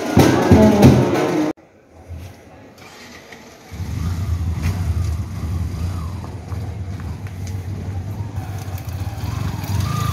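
Wedding-hall music and crowd noise cut off abruptly about a second and a half in. About two seconds later a motorcycle engine comes in, running steadily with a low rumble.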